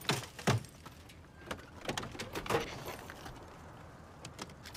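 Old sedan's driver door being unlatched and pulled open by a hand reaching in through the smashed driver's window: clicks and clunks of the latch and door, with two sharp knocks about half a second apart near the start.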